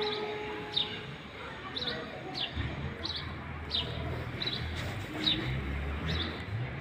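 A small bird chirping over and over, a short falling chirp roughly every two-thirds of a second, with a low rumble coming in about halfway through.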